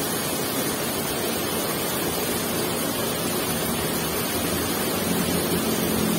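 Steady rushing noise of water pouring through an irrigation sluice gate. A low engine hum joins near the end.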